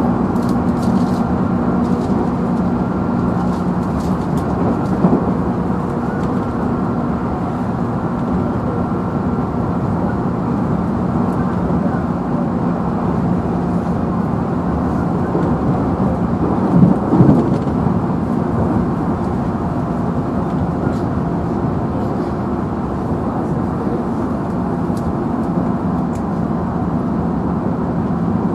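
Running sound heard from inside a JR Central 311 series electric train's motor car: a steady motor hum over the rumble of wheels on rail. There is a short knock about 5 seconds in and a louder brief clatter about 17 seconds in.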